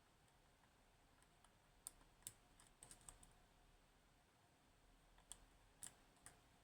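Faint, sharp clicks of a lock pick working the pins of a DOM S pin-tumbler lock held under tension: a handful of small ticks about two to three seconds in, and a few more near the end.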